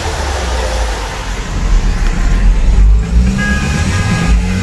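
Traffic rumble, then from about three seconds in car horns honking in long held blasts, drivers sounding support for a roadside political rally.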